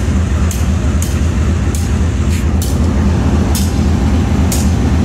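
Diesel locomotive engine running close by: a loud, steady low rumble, with short high hisses now and then.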